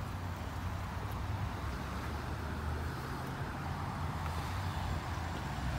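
Steady road and engine noise inside a moving car, a low rumble with tyre hiss.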